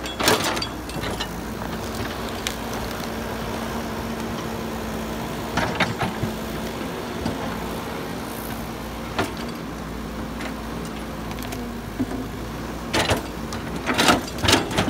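Caterpillar 120D excavator's diesel engine running steadily as the machine works its bucket in the dirt, with a few sharp knocks. The knocks come once each about a third of a second in, at about six seconds and at about nine seconds, then several close together near the end.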